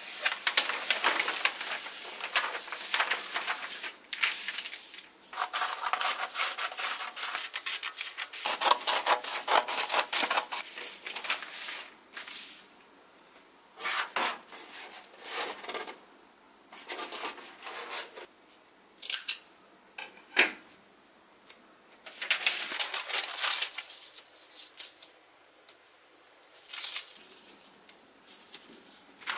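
A large paper plan sheet rustling and rubbing as it is unfolded, handled and laid over a sheet of 5 mm Depron foam, in irregular bursts with short pauses.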